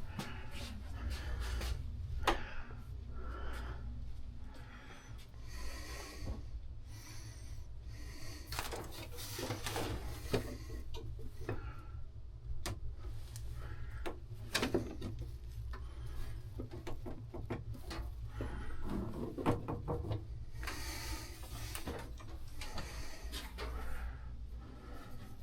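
Scattered knocks, clicks and rubbing of things being handled and moved, over a steady low rumble.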